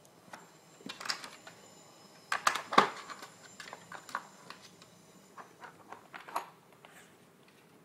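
Plastic pieces of a Nina Ottosson Dog Brick puzzle clicking and clattering as a dog noses and paws at its sliding tiles. The knocks come irregularly, loudest in a quick cluster about two and a half seconds in, with lighter clicks following until a second or so before the end.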